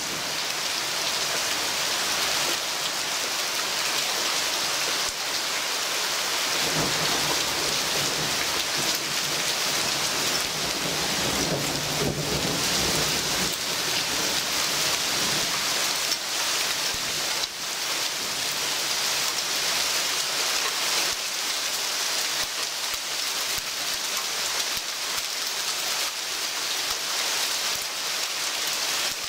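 Heavy thunderstorm downpour hissing steadily on tree foliage. A low roll of thunder rumbles for several seconds starting about a quarter of the way in.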